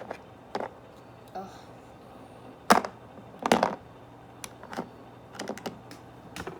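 Plastic toy figures handled and tapped on a hard surface: a string of light clicks and taps, with two louder knocks a little under halfway through.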